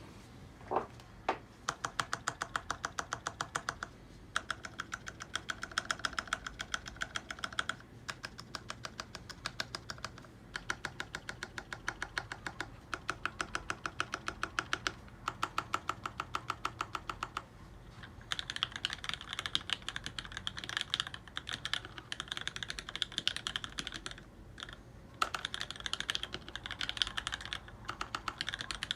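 Typing on an LZ-ergo mechanical keyboard with lubed Wyse black linear switches, 55 g springs and an aluminium plate: quick runs of keystrokes broken by short pauses every few seconds. The typing gets faster and denser in the second half.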